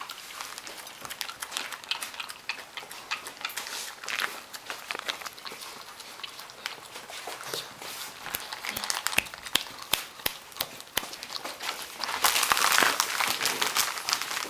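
A pug licking and chewing food off a plate: a stream of quick wet smacks and clicks of its tongue and teeth. About twelve seconds in comes a louder rustling, scraping stretch.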